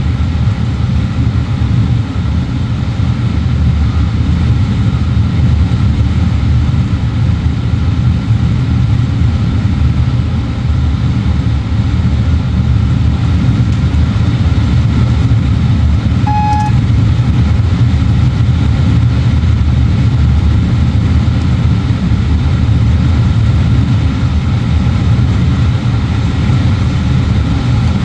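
Steady low rumble of a Class 350 electric multiple unit running along the line, heard from inside the driver's cab. A single short beep sounds a little past halfway.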